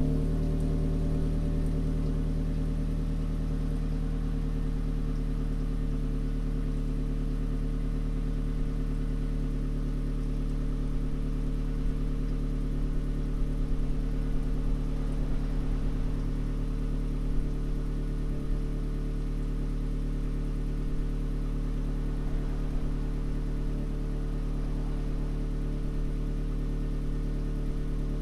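2018 Toyota C-HR's 2.0-litre four-cylinder engine idling steadily through an HKS Legamax cat-back exhaust, heard at its dual tailpipes.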